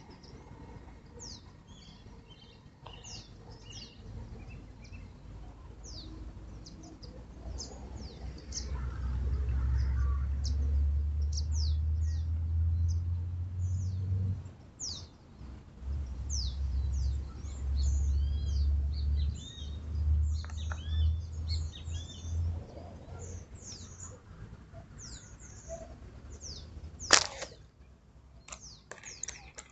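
Birds chirping all through, many short high calls, several of them quick falling notes. Twice in the middle a low rumble rises for several seconds, and near the end there is a single sharp snap.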